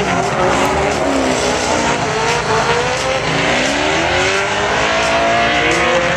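Drift cars sliding in tandem: at least two engines revving up and down with the throttle over the continuous hiss of spinning, squealing tyres.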